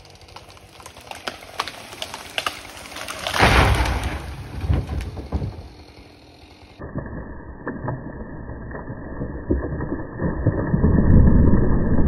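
A felled spruce giving sharp cracks and snaps, then crashing down through its branches about three and a half seconds in. After a cut, a low rushing rumble builds near the end as another tree comes down.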